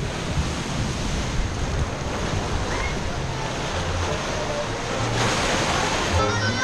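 A steady rushing noise, louder and hissier for about a second around five seconds in; music begins right at the end.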